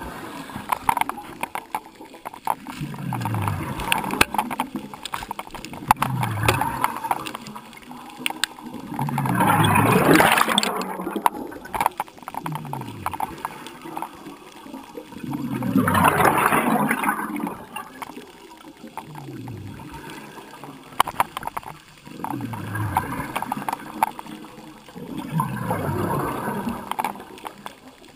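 Scuba diver breathing underwater through a regulator: exhaled bubbles gurgle in repeated bursts, two of them long and loud mid-way, over short low falling tones that repeat every couple of seconds.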